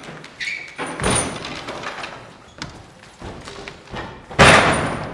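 Loud slams and thumps. A sharp one comes about a second in, a few lighter knocks follow, and the loudest slam lands about four and a half seconds in and dies away over about half a second.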